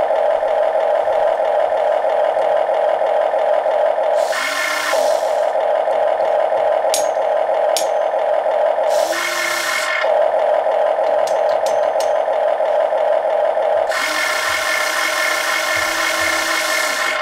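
Huina 1580 RC excavator running, its built-in sound module giving a steady, buzzy simulated diesel engine sound. Louder spells of electric motor noise come about four seconds in, about nine seconds in, and a longer one from about fourteen seconds, as the arm or grapple moves. A few light clicks fall in between.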